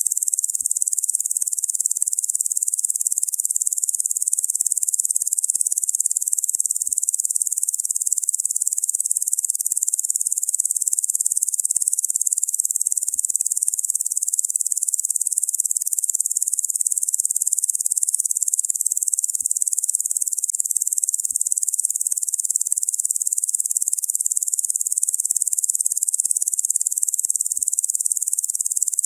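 Locusts making a steady, unbroken high-pitched buzz.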